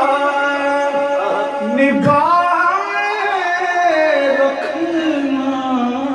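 A man singing a naat, drawing out long held notes that slide slowly up and down.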